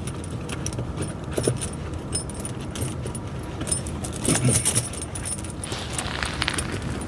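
Steel tractor tire chain links clinking and jingling as the chain is handled and laid over the tire tread, in irregular bursts. Underneath, a steady low engine hum, typical of the tractor idling.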